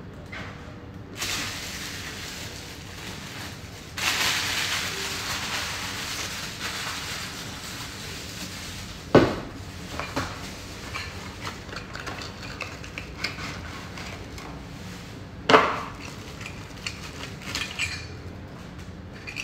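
Plastic bubble-wrap packaging rustling and crinkling as it is pulled off a frying pan, then two sharp knocks of cookware set down on a wooden countertop, followed by light clinks and more rustling of packaging.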